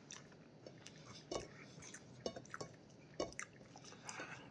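Wet chewing and mouth sounds of a person eating soft, fatty salmon head meat, with scattered small smacks and clicks.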